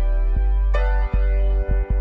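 Background music: soft held chords over a steady bass, with a new chord struck partway through.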